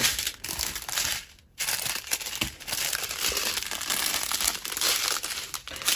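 Small plastic bags of diamond-painting drills crinkling as they are handled and sorted, with a brief pause about a second and a half in.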